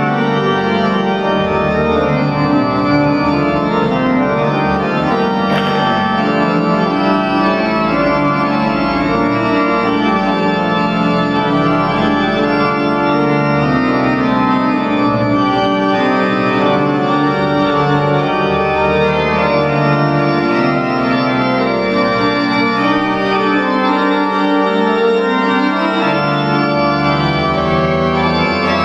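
Church pipe organ playing full, sustained chords over a deep pedal bass.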